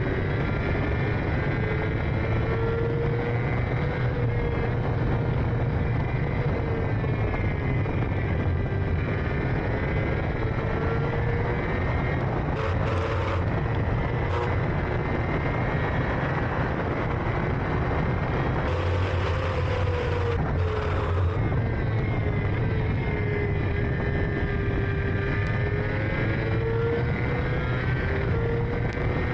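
Racing sidecar's engine running hard, its pitch slowly rising and falling as the engine speed changes, with two short rushes of hiss partway through.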